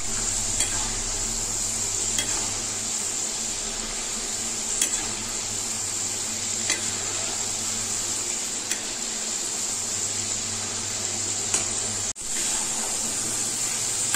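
Soaked chana dal deep-frying in hot oil in a steel kadhai, with a steady sizzle as the batch still bubbles. A perforated slotted spoon stirs and lifts the dal, and its metal clicks against the pan now and then. The sound breaks off briefly near the end.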